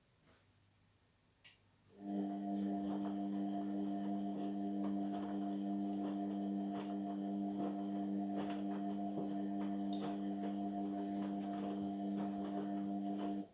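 Indesit washing machine's pump clicks on and runs with a steady electric hum for about eleven seconds, with faint ticks over it, then cuts off suddenly.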